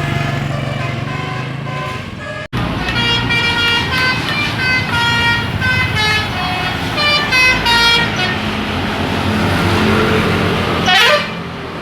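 Telolet horn of an Indonesian tour bus, a multi-tone musical horn, playing a quick tune of short stepped notes over the low running of the bus engine. The sound cuts out briefly about two and a half seconds in, and there is a fast sweep in pitch near the end.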